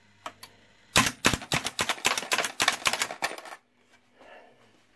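Coin payout mechanism of a restored Gunter Wulff Bingolett wall machine paying out 20p coins. About a second in, a rapid run of mechanical clicks and coin clatter starts, and it stops suddenly about two and a half seconds later. This is the full £1.60 payout, the sign that the machine's new payout cam works.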